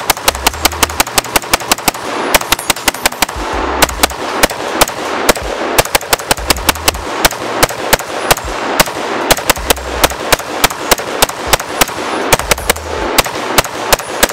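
5.56 AR-15 pistol firing a long, rapid string of evenly spaced semi-automatic shots from a 100-round drum magazine, a mag dump with no pause in the firing.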